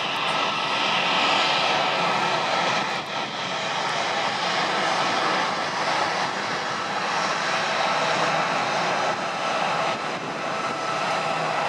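An Embraer E190's General Electric CF34 turbofan engines running steadily as the airliner rolls out along the runway after touchdown: a loud, even jet rush with a few faint steady whining tones.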